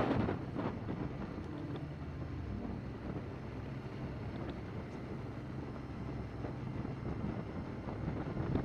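Motorcycle engine running steadily under way, with wind noise on the helmet microphone.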